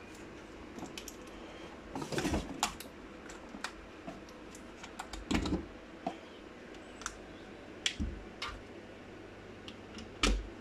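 Irregular plastic clicks and knocks from handling an extension lead and pushing mains plugs into it, with several louder clatters spread through.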